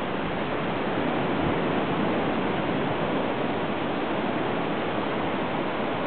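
Steady beach ambience: an even rushing noise of wind and surf, without any break or single event standing out.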